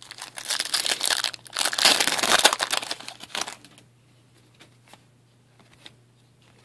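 A plastic-foil trading card pack wrapper crinkling and crumpling as it is opened, with dense crackling that dies away after about three and a half seconds. Then only faint ticks of cards being handled.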